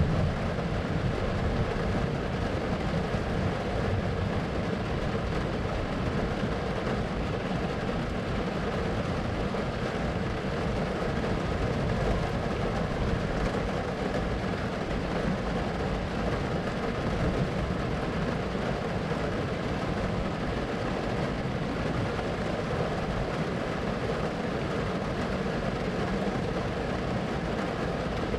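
Steady rumbling noise with a constant hiss over it, unchanging throughout: a thunderstorm white-noise ambience with no separate thunderclaps.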